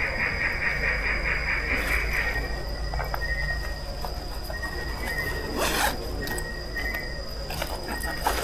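Night insects trilling: a pulsing chorus that stops about two seconds in, then short scattered chirps at the same pitch over a steady thin high tone. Scattered clicks and a brief rustle come a little before the six-second mark.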